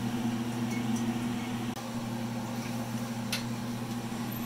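Steady low hum of a running kitchen appliance, with a single light clack about three seconds in as a sheet pan is handled at the oven.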